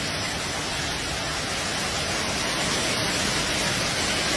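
Heavy hail and rain coming down together in a dense, steady hiss, with no single hailstone impacts standing out.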